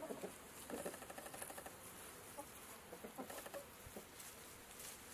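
Chickens clucking softly: a few short calls near the start and another pair about three seconds in, over faint high ticking.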